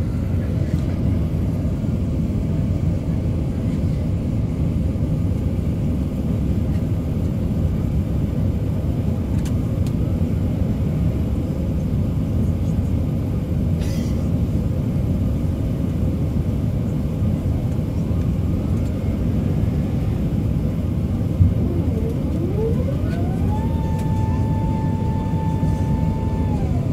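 Steady low rumble of airflow and engine noise inside the cabin of an Airbus A380-861 on its descent. About two-thirds in there is a brief click, then a mechanical whine rises and holds one steady pitch until near the end.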